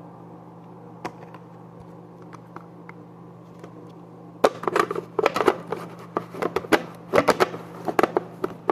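Plastic parts of a Bissell vacuum cleaner clicking and knocking as they are handled and fitted together. A quick, irregular run of clicks starts about halfway through, over a faint steady hum.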